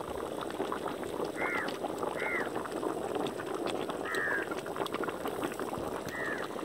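Pot of tomato gravy with whole chickens simmering over a wood fire: a steady dense bubbling crackle. A bird calls about four times in the background, short arched calls.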